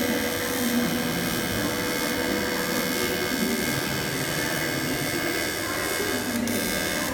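AC TIG welding arc on aluminium, a steady buzzing hiss that briefly drops out about six and a half seconds in.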